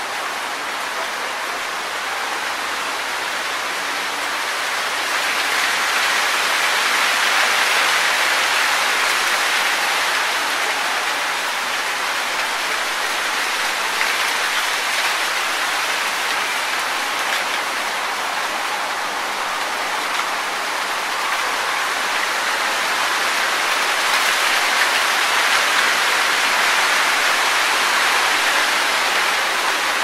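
Wind rustling through tree leaves: a steady rushing hiss that swells twice in gusts, once about a quarter of the way in and again near the end.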